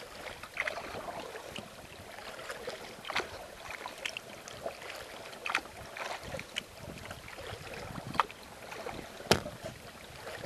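Kayak paddling on calm water: small irregular splashes and drips as the paddle blades dip in and lift out. A light hiss of wind runs under them, and there is one sharp, louder knock near the end.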